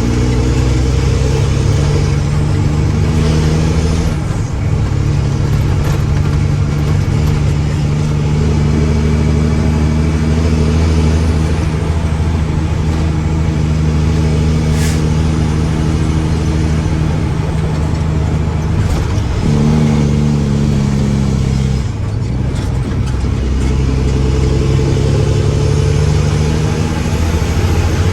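Diesel engine of a Mack dump truck running steadily. Its pitch shifts about four seconds in and again around twenty seconds in, and there is one short tick midway.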